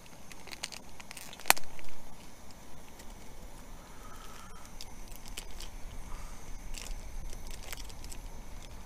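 Plastic bacon packet being peeled open and handled: scattered crinkling and crackling, with one sharp snap about one and a half seconds in.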